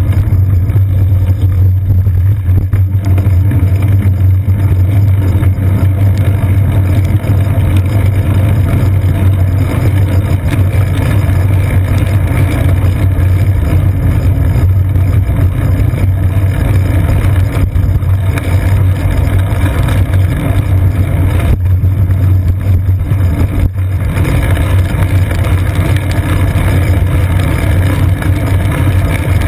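Steady, loud low rumble of riding wind and road vibration picked up by a GoPro Hero 2 mounted on a bicycle seat post, muffled through its waterproof housing, as the bike rolls along wet pavement.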